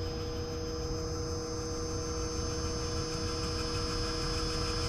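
Steady machine hum made of several fixed, unchanging tones, with no rise or fall in pitch.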